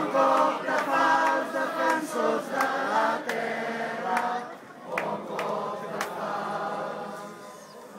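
A large crowd singing a slow song together, holding long notes. The singing tails off near the end.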